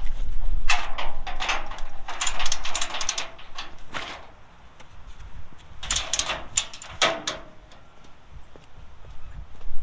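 Ratchet on a car hauler's wheel strap being worked to tighten it: two runs of rapid metallic clicking and rattling, the second starting about six seconds in.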